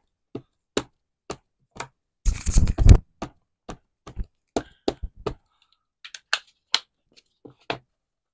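A plastic-cased VersaFine Clear ink pad tapped repeatedly onto a clear stamp to ink it, sharp taps about two a second with a quick, loud flurry of dabbing a couple of seconds in. A few lighter clicks follow near the end.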